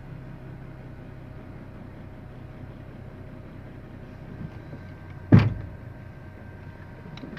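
Vehicle engine idling with a steady hum. One sharp, loud knock about five seconds in, with fainter clicks shortly before and near the end.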